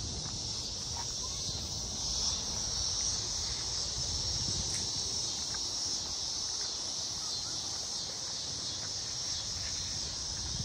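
Steady chorus of insects at dusk, an even high-pitched buzz, with a low rumble underneath.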